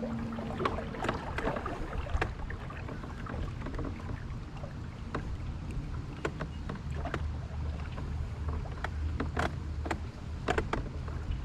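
Wind rumbling on the microphone of a small fishing boat drifting in the wind, with scattered light clicks and knocks from the boat and its gear.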